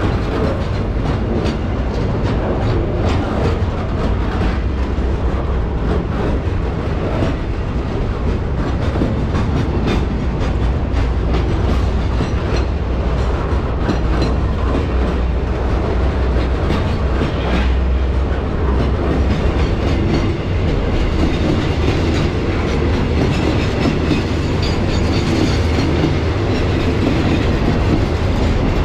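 A train rolling past on the rails: a loud, steady rumble of wheels on track, with rapid clicking of the wheels running over the rail joints.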